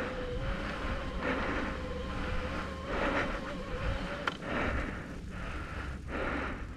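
Electric mountain bike ridden over a dirt trail: a steady motor whine over tyre and drivetrain rattle and wind on the microphone, with one sharp knock about four seconds in.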